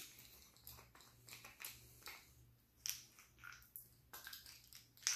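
Green plastic handle cap of a Snap-on multi-bit screwdriver being twisted off and small steel bits tipped into a palm: a few faint, scattered clicks and light rattles.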